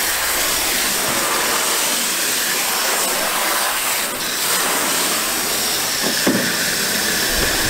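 Garden hose spray wand jetting water onto the riveted metal floor of a boat: a steady hiss of spray splashing on the deck.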